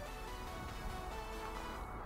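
Background music with held notes that change every fraction of a second, over a low steady rumble.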